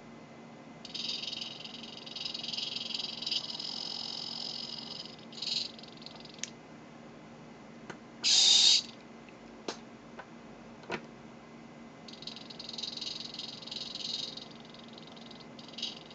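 Saturn S010 hobby servo's motor and gears whining as the servo turns its horn, following a trimmer potentiometer being adjusted, in two stretches of a few seconds. About eight seconds in comes a louder half-second burst of motor noise, and a few sharp clicks sound between the stretches.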